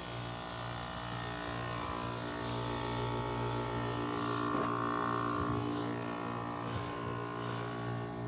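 Carrier Comfort 25HBC560A003 heat pump outdoor unit running in its defrost cycle: a steady electrical buzzing hum, with a higher hissing band that swells about two seconds in and fades again after about six seconds.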